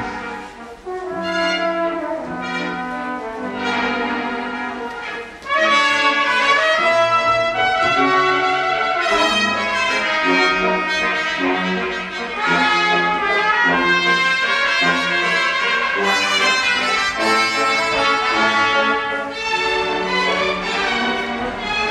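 Orchestra playing ballet music, with brass prominent; it swells to a louder, fuller sound about five and a half seconds in.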